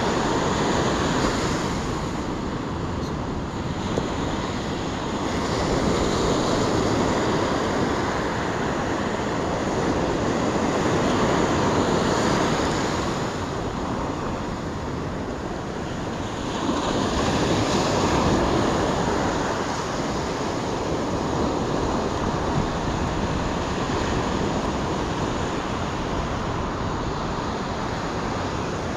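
Ocean waves breaking and washing up the shore, the noise swelling and easing every several seconds.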